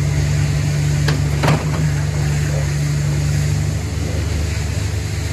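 Kubota U48 mini excavator's diesel engine running under hydraulic load as the boom and arm lift and curl the bucket, with two sharp knocks a little over a second in. The steady hum eases about two-thirds of the way through.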